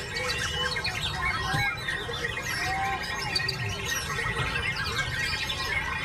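White-rumped shama singing a rapid, unbroken stream of chirps, whistles and trills, with a low steady rumble underneath.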